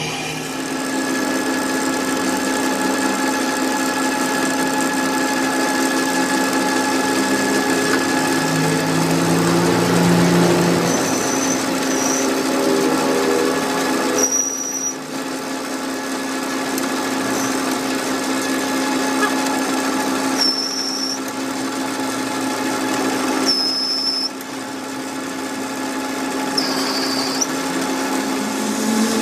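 Metalworking machine running steadily in a workshop, a constant pitched hum under grinding noise, with several brief high squeals about 11, 14, 20, 23 and 27 seconds in, as metal is worked on the broken truck axle being repaired.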